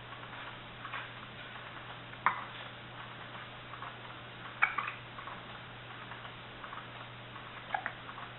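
A baby hiccuping three times, a couple of seconds apart, over the steady ticking and low hum of her baby swing.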